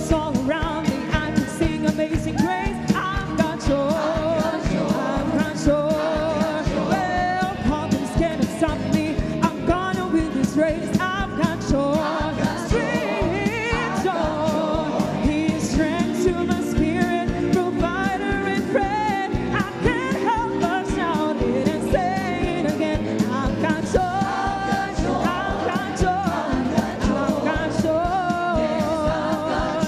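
A worship song with a singing voice over a full band with a steady drum beat.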